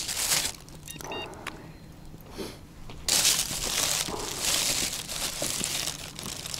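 Plastic bag crinkling and rustling while hands scoop crumbly groundbait and press it into a wire cage feeder; louder from about three seconds in.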